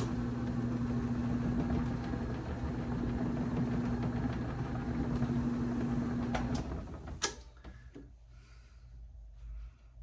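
Bowling ball spinner switched on with a click, its electric motor running with a steady hum as the ball spins. It winds down about six and a half seconds in and is switched off with a click a moment later.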